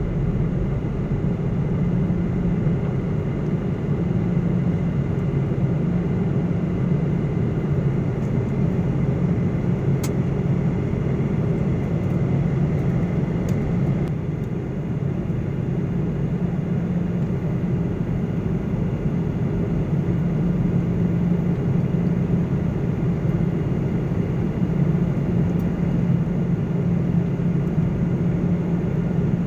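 Jet airliner's engines and airflow heard from inside the passenger cabin: a steady, even drone with a strong low hum.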